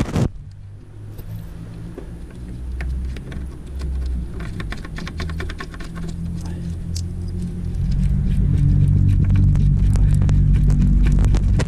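A 10 mm bolt being threaded in by gloved hand: scattered light metallic clicks and a quick run of ticks about five seconds in, over a low rumble of handling noise that gets louder near the end.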